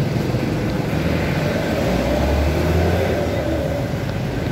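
Street traffic: a motor vehicle passes close by, its low engine rumble swelling about two to three seconds in over steady road noise.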